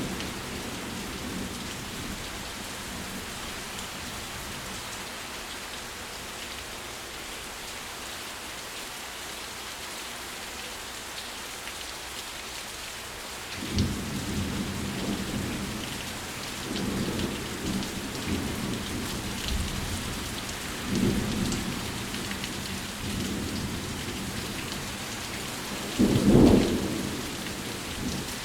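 Steady heavy rain falling, with rolls of thunder rumbling in about halfway through and returning several times, the loudest clap near the end.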